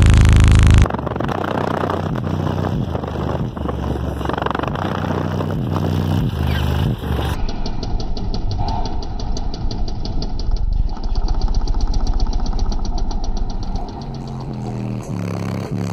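Loud car-subwoofer bass, distorted and buzzing so that it resembles an engine: a stepping line of deep bass notes, then after an abrupt change about seven seconds in a steady deep tone with a fast, even buzz, and stepping low notes again near the end.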